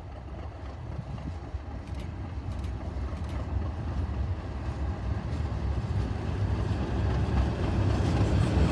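Class 37 diesel locomotive with its English Electric V12 engine running as it approaches, a low rumble growing steadily louder.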